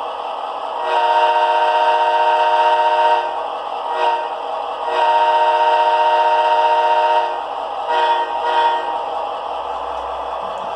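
Leslie S4T chime air horn sound played by a model locomotive's Tsunami sound decoder: a chord of several steady tones. It sounds two long blasts, a brief toot between them, and two short blasts near the end.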